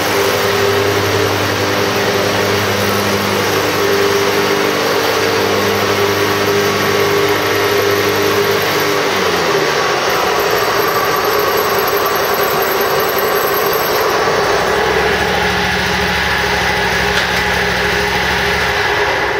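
Exmark Turf Tracer walk-behind mower's 20 hp Kohler Command engine running steadily. About nine to ten seconds in, its deep low tones slide down and fade, and a new low hum sets in around fifteen seconds.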